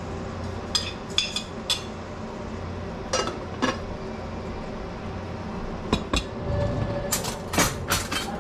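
Ceramic plate and utensils clinking and clattering as white rice is served from a rice cooker onto the plate: three quick clinks about a second in, two more a couple of seconds later, and a busier cluster near the end. A steady low hum runs underneath.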